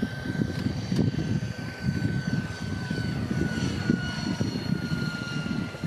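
A radio-controlled model helicopter in flight: its motor and rotor give a steady high-pitched whine that slowly drops in pitch, over an uneven low rumble.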